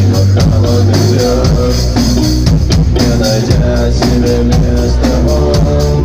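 Live rock band playing loudly: electric guitars and a drum kit keeping a steady beat, with a singer's voice over them.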